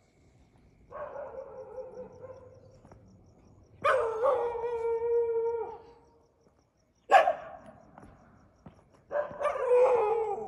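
Indian street dogs howling: four drawn-out pitched calls, the two loudest lasting about two seconds each, with a shorter, sharper call about seven seconds in.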